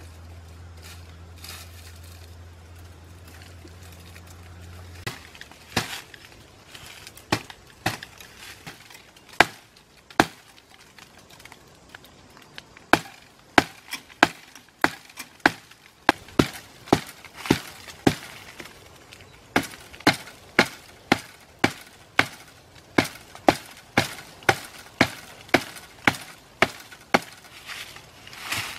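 Sharp chops of a blade into bamboo stems: a few scattered strikes at first, then about one to two a second through the second half. A low steady hum stops about five seconds in.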